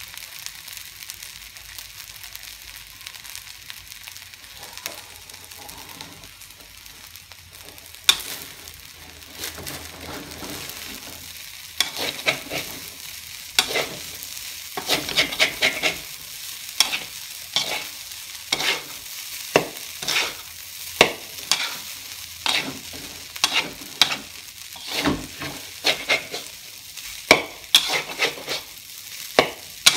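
Nasi goreng frying in a wok, with a steady sizzle, while a metal spatula stirs and tosses the rice, scraping and clanking against the pan. The first several seconds are mostly sizzling; after that the spatula strokes come often, several a second at times.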